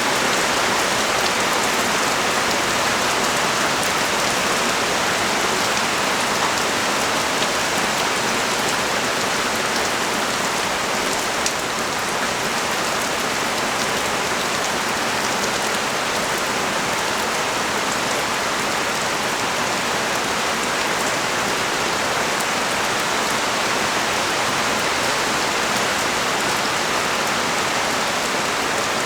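Heavy rain pouring steadily onto a street, an even hiss with scattered drop ticks.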